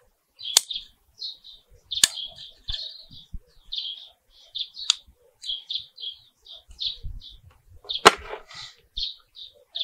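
Red pruning shears snipping bonsai tree roots, sharp clicks three times in about five seconds, then a louder clack about eight seconds in as the shears are laid down on the table. A bird chirps over and over behind it.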